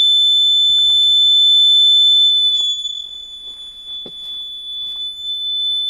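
Electric buzzer of a homemade airsoft sound mine giving a continuous, shrill alarm tone: the mine has been set off. The tone becomes quieter about two and a half seconds in.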